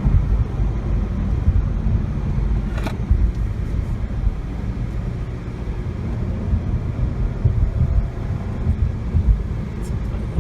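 Jaguar XE S's supercharged V6 running steadily at low revs under light load, with a dense low road-and-engine rumble and no revving. A single sharp click about three seconds in.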